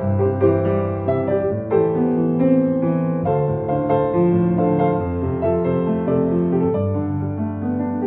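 C. Bechstein Academy A190 grand piano being played: a flowing passage of overlapping, sustained notes and chords.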